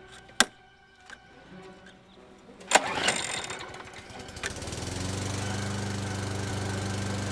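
Craftsman walk-behind mulching lawn mower being started: a sharp click from the handle controls, then a loud pull of the starter about two and a half seconds in, and the engine catches and settles into steady running from about halfway.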